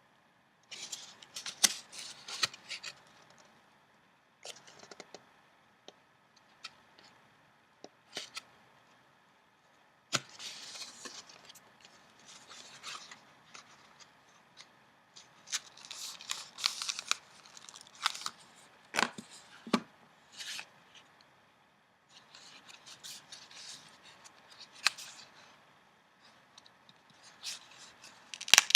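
Newspaper flier pages being handled and flipped: short crisp rustles and sharp clicks in bursts, with quiet gaps between them.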